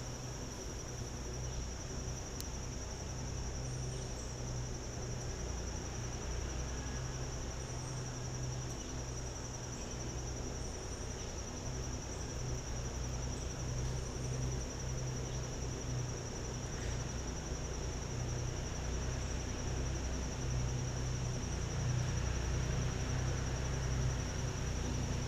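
An insect trilling steadily at one high pitch without a break, over a low rumble.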